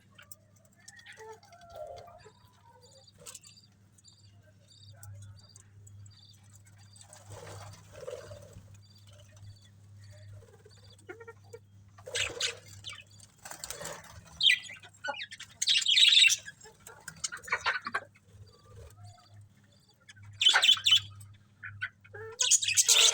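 Budgerigars chirping, faint and scattered at first, then louder bursts of quick, high chattering chirps in the second half.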